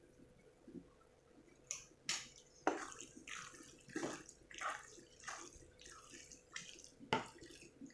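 Thick macaroni in white sauce being stirred with a wooden spatula in a frying pan: a series of soft, wet stirring strokes, about two a second, starting near two seconds in.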